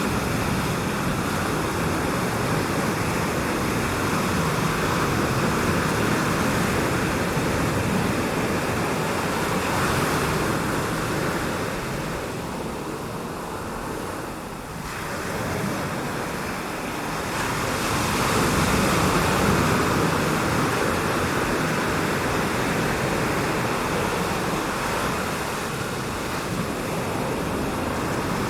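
Rushing wind noise, a steady hiss that swells and eases, dipping about halfway through before building again.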